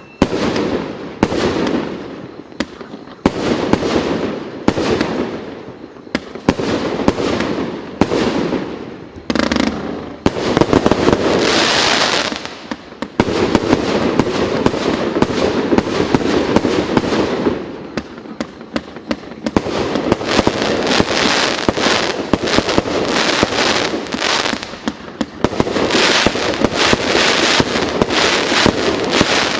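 Multi-shot firework battery (cake) firing: shots about once a second, each followed by a crackling burst, then from about ten seconds in a denser run of rapid shots and continuous crackle.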